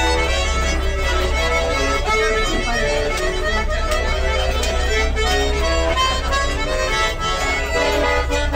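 Lively dance music.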